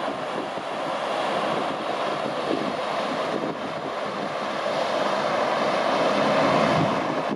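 Steady rushing noise with no clear engine tone, swelling slightly about five seconds in.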